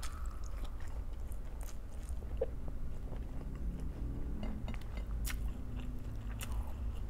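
A person biting and chewing food close to the microphone, with a few sharp crunches, over a low steady hum.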